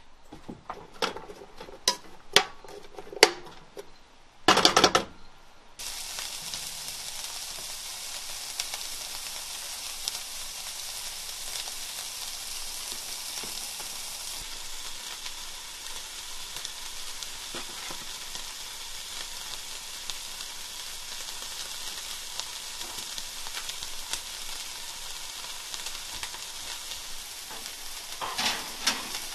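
A few sharp clicks at the gas stove, then diced peppers and onion sizzling steadily in a frying pan from about six seconds in.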